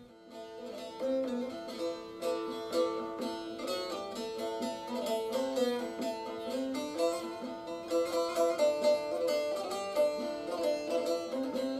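Background music: a plucked string instrument playing a melody of short, stepping notes.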